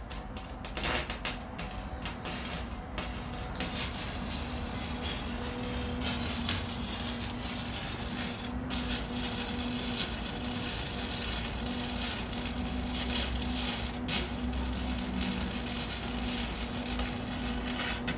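Electric arc welding: the arc crackles and sputters continuously, throwing sparks, over a steady electrical hum.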